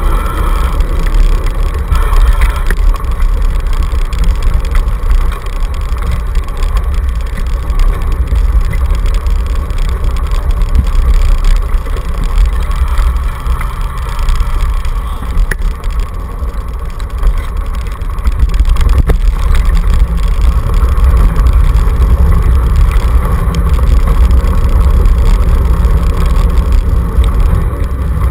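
Steady, loud rumble and rattle of a dog scooter rolling fast over a dirt and gravel track, picked up by a camera mounted on its handlebar.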